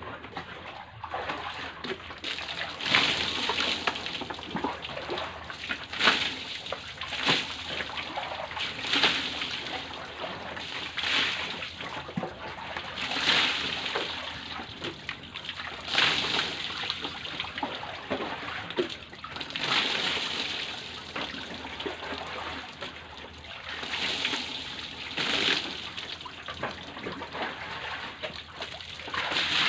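Water poured from a plastic jug over a goat on a slatted wooden stand, splashing and running off the boards. It comes in repeated pours a couple of seconds apart, with trickling between them.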